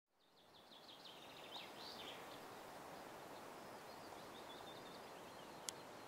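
Faint outdoor ambience fading in: small birds singing in rapid high notes over a steady hiss, with one sharp click near the end.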